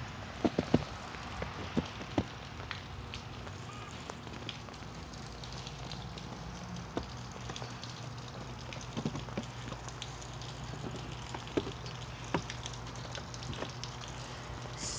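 Bare feet stepping in slushy snow on wooden stairs: irregular soft crunches and crackles, with a few sharper clicks, the loudest about half a second in.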